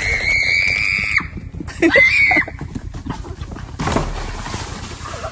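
An animal's high-pitched squealing cries: one long held cry lasting about a second, then a shorter one about two seconds in.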